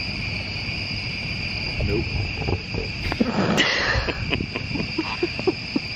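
Crickets chirping in a steady night chorus, a continuous high trill. Scattered soft clicks and a brief rustle about three and a half seconds in sit beneath it.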